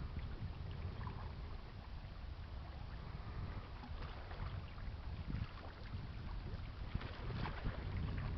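Wind buffeting the microphone: a steady low rumble that swells and falls in gusts, with faint scattered ticks.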